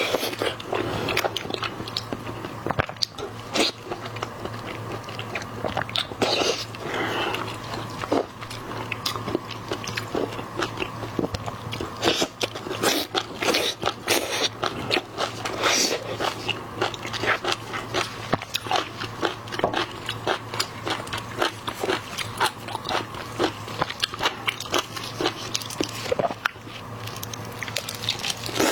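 Close-miked ASMR eating of seafood: steady crunchy biting and chewing, with many quick wet clicks and crackles, over a faint steady low hum.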